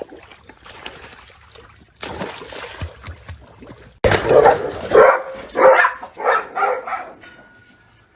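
A dog barking about six times in quick succession over some three seconds, after a stretch of noise.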